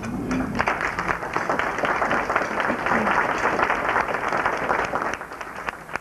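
Audience applauding, a dense patter of many hands clapping that starts about half a second in and dies away near the end, with a few voices mixed in.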